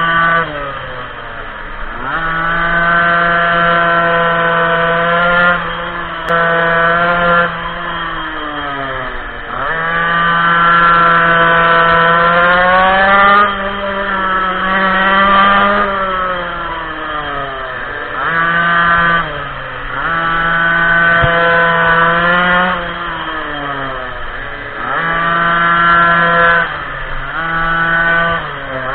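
Minimoto's small two-stroke engine revving hard, its high buzzing note repeatedly climbing and holding, then dropping off as the throttle is closed and reopened, about a dozen times.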